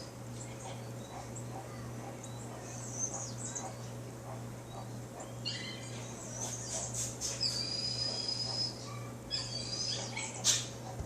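Birds calling with high chirps and short whistles, in clusters from about halfway on.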